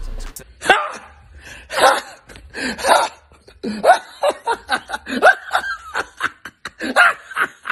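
A man laughing hard in a long run of short bursts.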